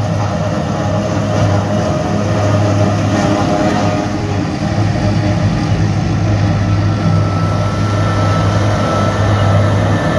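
Self-propelled forage harvester running under load while chopping grass for silage: a loud, steady drone of engine and cutterhead, with a faint high whine in the second half.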